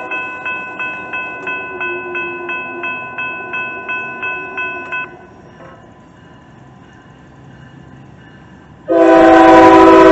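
Grade-crossing bell ringing steadily at about three strokes a second, stopping about five seconds in. Near the end the approaching diesel locomotive's multi-chime horn sounds one loud, long blast.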